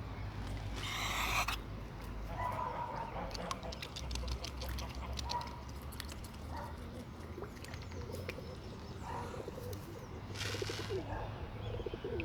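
A flock of birds being fed corn, with scattered short calls and cooing. There are brief rushes of flapping wings about a second in and again near the end, and a run of quick ticks in the middle.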